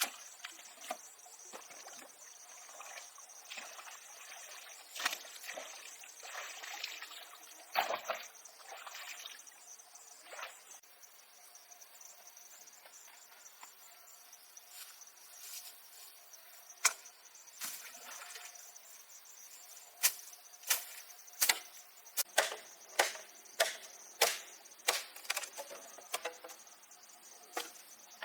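Crickets chirping steadily, with scattered sharp knocks and scrapes of hand-tool work, then a regular run of knocks at about one and a half a second over the last third.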